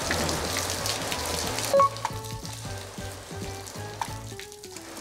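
Hose water spraying hard onto a coated car panel, a steady splashing hiss. About two seconds in it cuts off with a short loud sound, and a simple stepping melody of background music follows.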